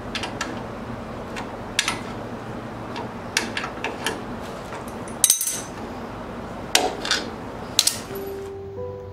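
Adjustable wrench and locking pliers clinking on steel while the nut on a wagon's handle pivot bolt is tightened: a string of sharp metal clicks and taps over a steady background noise. Soft music notes come in near the end.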